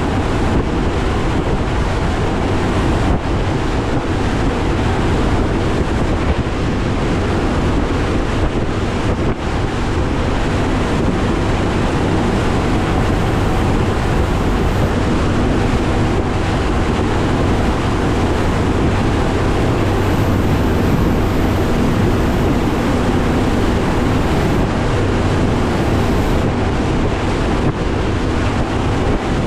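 Bass boat running through rough water with its Mercury Pro XS 200 outboard droning steadily under heavy wind buffeting on the microphone and the rush of water against the hull.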